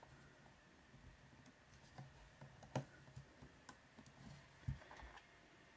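A few faint clicks and knocks of fingers working the plastic case of a Casio CQ-1 calculator, trying to pull it apart, over near silence; the loudest click comes about three seconds in.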